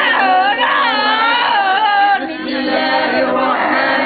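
Several voices reciting Quranic verses together in a chant as a ruqyah exorcism, with a high, wavering wailing voice loudest over them in the first half.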